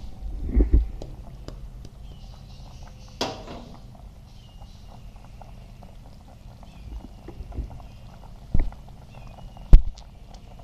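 Thick flour-thickened gravy boiling hard in an aluminium pot over high heat, with a constant patter of bubbles popping. A few short low thumps break through, the loudest near the end.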